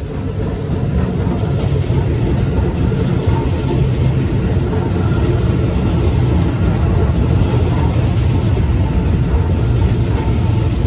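Keisei 3100 series electric train passing close by without stopping: the steady running noise of its wheels on the rails and its running gear, swelling over about the first second and then holding loud.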